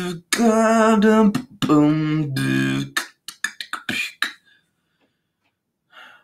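Beatboxing: low held hummed notes with vocal sounds over them for about three seconds, then a quick run of sharp mouth clicks and snares that stops about four and a half seconds in.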